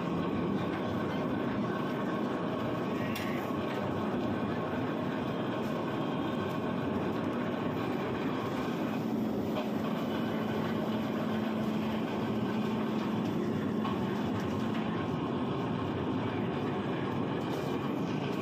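Electric mini reversible concrete mixer (RM 1050) running under test: a steady mechanical rumble and rattle from the machine, with a steady hum joining in for several seconds in the middle.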